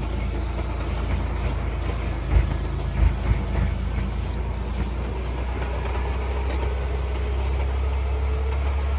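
Off-road vehicle driving along a muddy trail: a steady low engine drone with rumble from the tyres and body, and a few short knocks about two and three seconds in.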